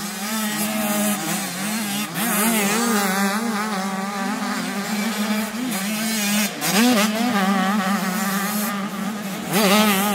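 85cc two-stroke motocross bikes racing, several engines at once, revving up and down through the gears. The engines get louder near the end as they pass close by.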